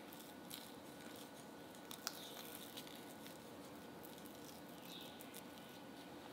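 Silicone spatula stirring soft butter and green tea powder in a glass bowl: faint squishing and scraping, with a sharper click about two seconds in.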